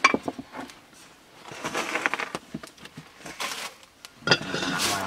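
Rustling and scraping of flour being worked by hand in a woven basket, with scattered sharp clicks. About four seconds in comes a sudden clatter at the cooking pot, then a steady hiss.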